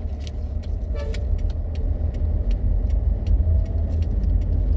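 Steady low rumble of a car heard from inside the cabin while moving, with scattered light clicks and rattles.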